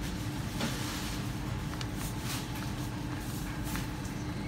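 Steady low machine hum of a supermarket, with a faint constant drone and a few light clicks and rustles scattered through.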